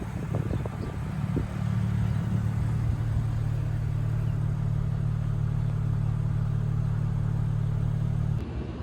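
A car engine idling: a steady low hum that cuts off abruptly near the end.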